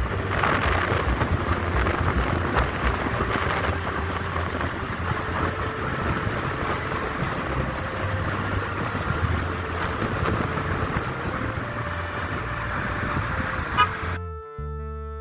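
Wind and road noise from a vehicle moving along a road, with a steady low rumble. Near the end it cuts off suddenly and music begins.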